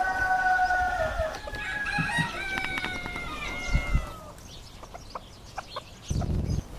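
A rooster crowing, the long call trailing off about a second in, followed by shorter, higher clucks and chirps from chickens. A brief low sound comes near the end.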